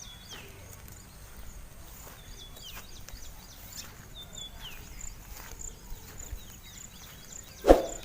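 A bird repeats a short call that falls in pitch every second or two over a steady, high, pulsing insect trill. One sharp knock comes near the end.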